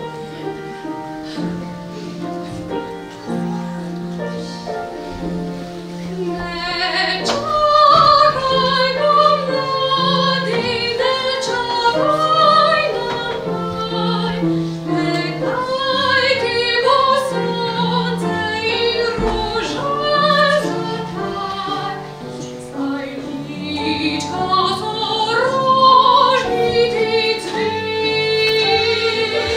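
A woman singing a song to upright piano accompaniment. The piano plays alone at first, and the voice comes in about seven seconds in, with a wavering vibrato on held notes.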